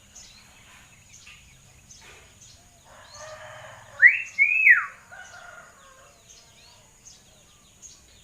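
Hill myna vocalising: a harsh raspy call about three seconds in, then a loud two-note whistle, the first note rising and the second falling, followed by softer chatter.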